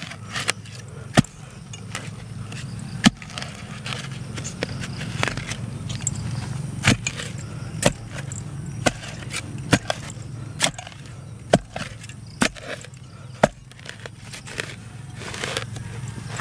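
A short-handled spade digging into soil: the blade strikes and scrapes the dirt about once a second, over a steady low hum.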